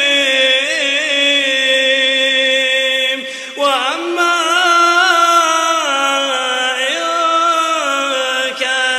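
A man's voice reciting the Quran in slow, melodic tajweed chant, holding long notes with wavering ornaments. A short breath about three and a half seconds in, then the chant resumes.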